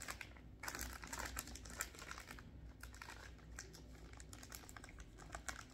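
Plastic candy bag crinkling and rustling as it is handled, a steady run of small irregular crackles and clicks.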